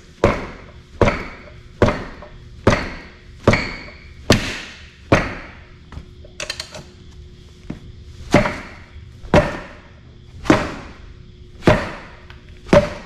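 Repeated heavy blows on metal, about one a second with a short break in the middle, each ringing briefly: the seized 6-71 Detroit Diesel being struck to force it to rotate.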